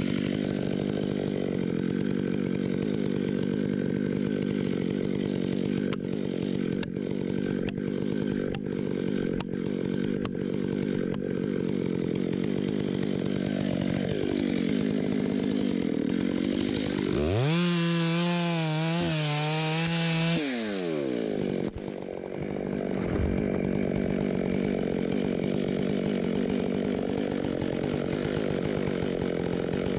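Stihl MS661 chainsaw cutting white fir. Its two-stroke engine runs steadily under load, revs up higher for a few seconds past the middle, then settles back into the cut.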